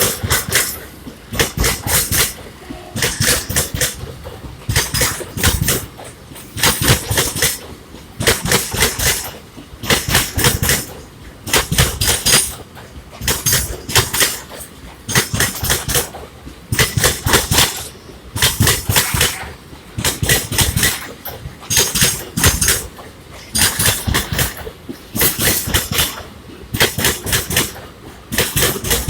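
Freight train wheels clattering over rail joints: a steady rhythm of clustered knocks about every two seconds over a low running rumble.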